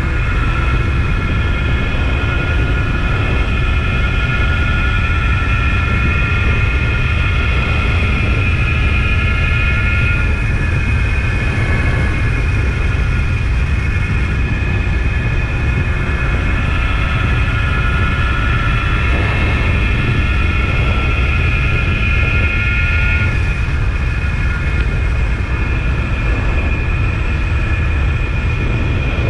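Suzuki GT185 two-stroke twin motorcycle engine running under way, with heavy wind rumble on the microphone. The engine note drops sharply about ten seconds in and again near the end, climbing back in between.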